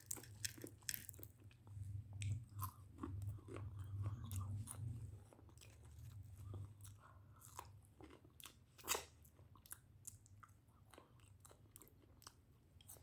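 A person chewing and biting into a chicken burger and crispy fries close to the microphone, with many short crisp crunches; the sharpest crunch comes about nine seconds in.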